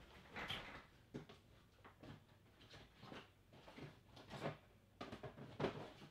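Faint, irregular knocks and handling noises of someone rummaging to fetch an item, with a couple of louder knocks near the end.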